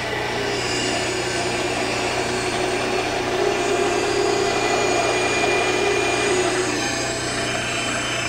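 Bandsaw running and cutting through a wood board, a steady motor hum under the hiss of the blade in the wood. The cut grows louder midway, and the sound begins to die away right at the end.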